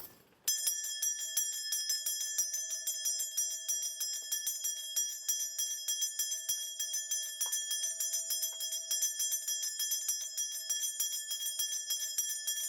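A Korean shaman's ritual bell cluster (bangul) being shaken rapidly and without pause, a steady bright jingling that starts about half a second in. This is the shaman calling on the spirits during a divination reading.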